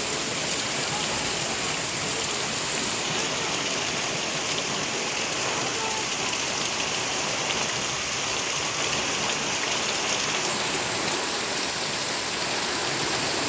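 Heavy rain pouring down, a steady, even hiss without let-up.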